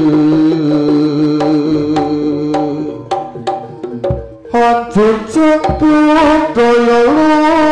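Javanese jaranan music played live: a shrill reed trumpet (slompret) holding and bending long notes over hand-drum (kendang) strokes. About three seconds in the melody thins out for a moment, leaving drum strokes and a couple of deep thumps, then the reed comes back in.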